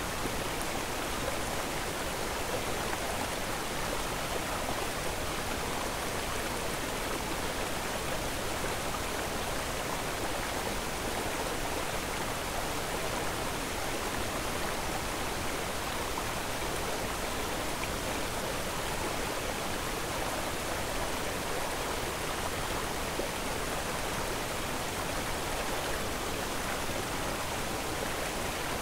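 A steady, even rushing noise that does not change, with no separate events or tones in it.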